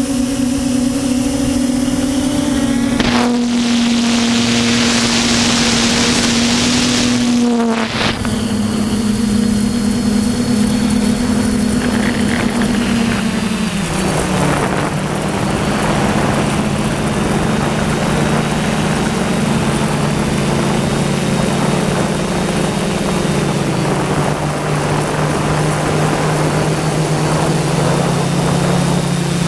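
DJI F450 quadcopter's electric motors and propellers whirring in flight: a steady pitched hum that steps down in pitch about halfway through as the craft slows. A rushing hiss of wind on the microphone rises over it about three seconds in and lasts some five seconds.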